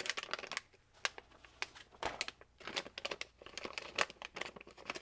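Anti-static bag crinkling as it is handled, in irregular sharp crackles, with paper rustling as a sheet of the instructions is turned.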